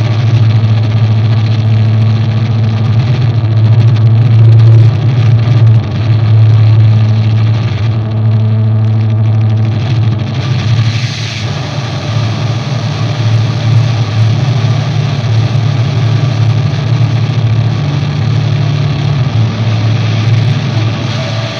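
Loud drone of heavily distorted electric guitar played through effects and Orange amplifiers: a steady low hum under a dense wash of noise, with no distinct notes, turning brighter and hissier about halfway through.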